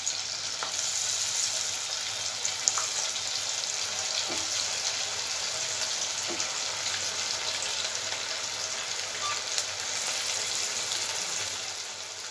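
Marinated chicken pieces deep-frying in hot oil in a kadhai: a steady sizzle with a few light pops.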